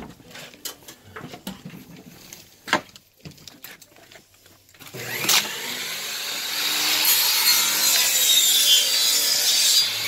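Scattered light clicks and knocks, then from about halfway a loud, steady scraping rub against something close by.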